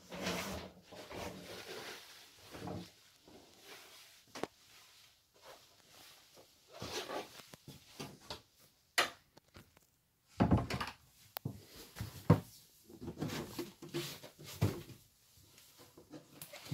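Irregular knocks, clicks and rustling of someone moving about a sailboat's cabin and handling its doors and lockers. A few sharp clicks, with the loudest knocks a little past the middle.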